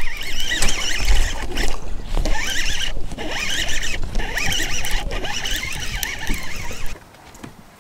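Fishing reel cranked fast against a hooked bass on a bent rod, a wavering whirring whine in short runs of turns with brief pauses, over a low rumble. The winding stops about 7 seconds in.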